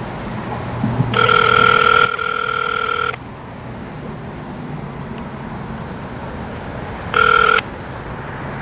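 Telephone ringback tone through a phone's speakerphone: the line is ringing and nobody has answered yet. One steady two-second ring comes about a second in, then a second ring starts near the end and is cut short after half a second.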